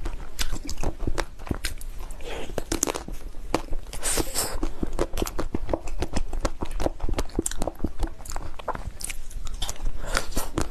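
Close-miked eating: biting and chewing a piece of chocolate-coated cream cake, with many quick crisp clicks and crackles of the chocolate shell breaking. A brief hiss about four seconds in.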